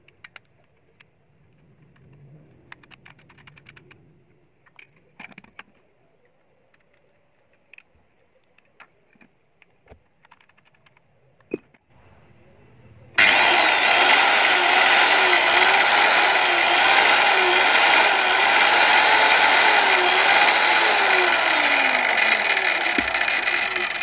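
Rewound circular saw's electric motor switched on abruptly about halfway through and running loud and steady under no load, with a slight regular wobble in its pitch: a test run after the armature rewind and new carbon brushes. Before it, light clicks and taps of the saw being handled and its brush cap screwed in.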